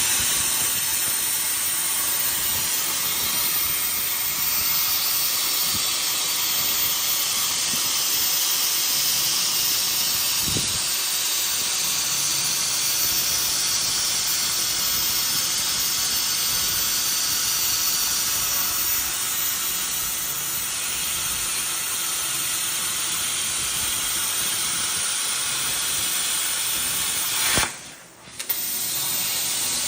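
Robot-held plasma cutting torch hissing steadily as its arc cuts through sheet metal. The hiss cuts out sharply for under a second near the end, then returns.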